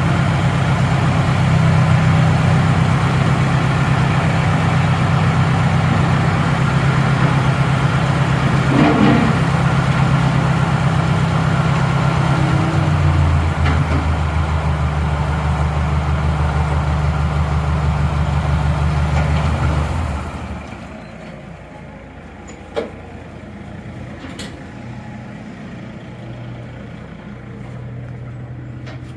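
An engine runs steadily, its pitch dropping to a lower note about halfway through, then cuts off about two-thirds of the way in. After that there is a quieter background with a few sharp knocks.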